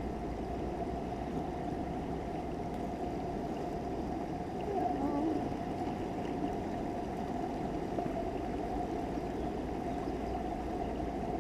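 Fast-flowing river water rushing steadily past close by.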